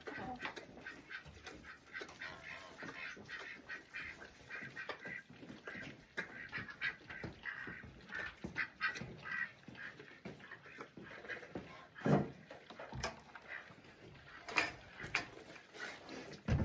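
Short repeated animal calls mixed with rustling and scuffing, with two louder knocks about twelve and fourteen and a half seconds in.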